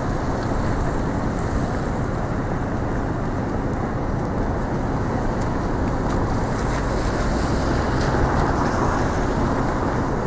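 Steady outdoor traffic noise, an even wash of sound from cars on a wet road with no single event standing out.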